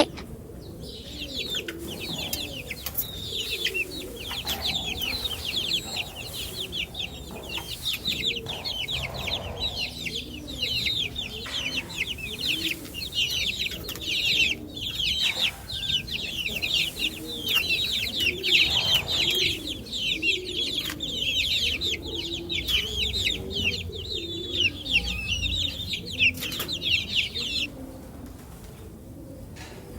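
Many baby chicks peeping, a dense chorus of short high chirps, with lower clucking underneath. The peeping stops a couple of seconds before the end.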